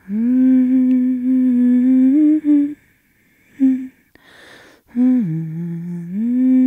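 A person humming a slow tune with closed lips. A long held note is followed by a short one, then a phrase that dips to a lower note and rises back.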